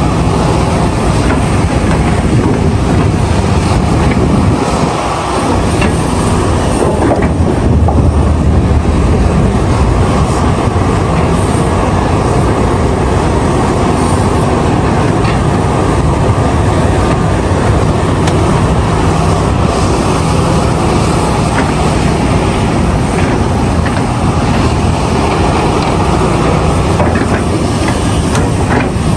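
Caterpillar 352F hydraulic excavator's diesel engine running steadily under load, a dense low rumble with a few sharp knocks along the way.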